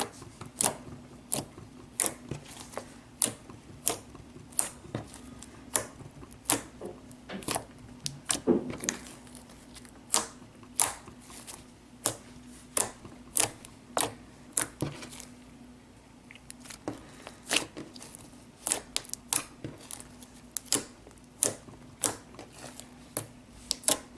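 Fluffy slime being squeezed and poked, giving sharp, irregular pops and clicks one to three times a second. A faint, steady low hum runs underneath.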